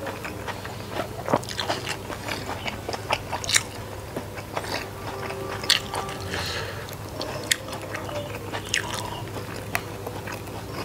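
Close-miked chewing of a mouthful of food eaten by hand, with many small, sharp wet clicks and crunches scattered throughout.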